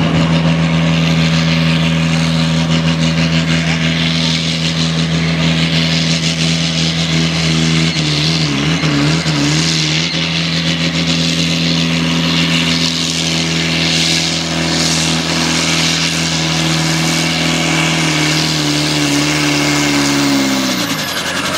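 Valmet tractor's diesel engine running at high revs under full load as it pulls the weight-transfer sled, with a steady note that wavers briefly about halfway. About twenty seconds in the engine note falls and drops away as the pull ends.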